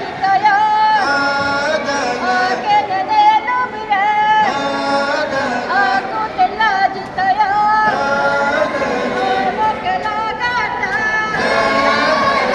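A group of voices singing a song together, holding and bending long notes.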